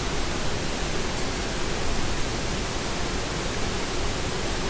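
Steady hiss with no distinct event.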